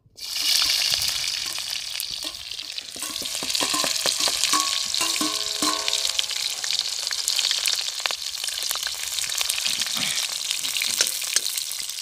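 Chopped onion and garlic hitting hot oil in a karahi (wok) over a wood fire: a sudden loud sizzle at the start that settles into steady frying crackle. A steel spoon stirs and scrapes through it.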